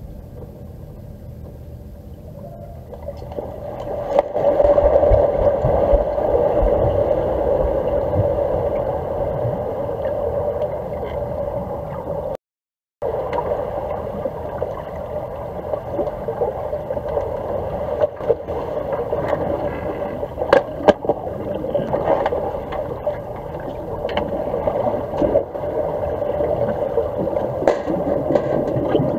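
Underwater sound of a swimming pool picked up by a camera on the pool floor: a steady, muffled rush of water that gets louder about four seconds in, with scattered sharp clicks and knocks. The sound cuts out briefly near the middle.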